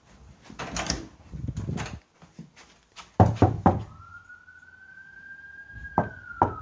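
A door being opened: a few loud clunks from the handle and latch, then a long creak from the hinges, one drawn-out tone that rises a little and then slowly falls in pitch. Two more knocks come near the end.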